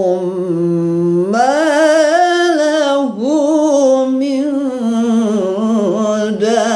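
A man's voice reciting the Quran in the melodic, sung style (tilawah), holding long ornamented notes. A steady low note rises about a second in into a wavering, melismatic line that dips briefly near the middle and carries on unbroken.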